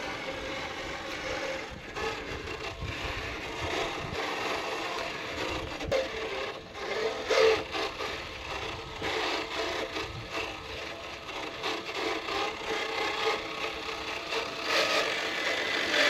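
A 1/10 scale RC crawler driving down a sand dune: its electric motor and gear drivetrain whir steadily, with a rough noise that rises and falls as it moves, getting louder near the end.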